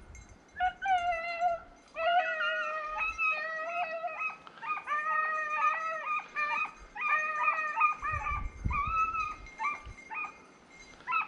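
Rabbit hounds baying while running a rabbit: a string of drawn-out, howling bays, sometimes two dogs at once, starting about half a second in and going on until near the end.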